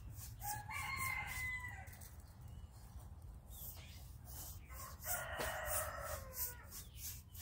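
A rooster crows twice: once about half a second in, and again, harsher, about five seconds in.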